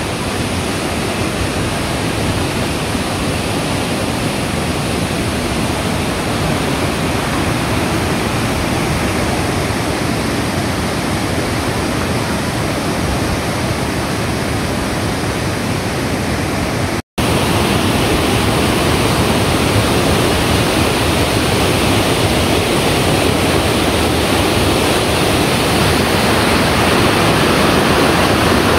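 Steady rush of water from a rocky mountain river and waterfall. It cuts out for an instant about 17 seconds in and comes back slightly louder.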